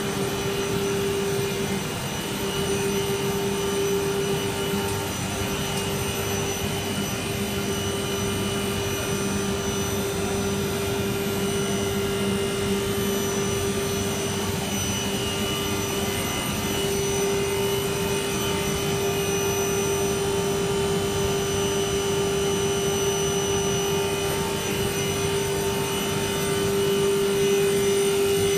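Machinery of a PVC marble sheet production line running: a steady industrial drone with a constant mid-pitched hum and fainter steady whines above it.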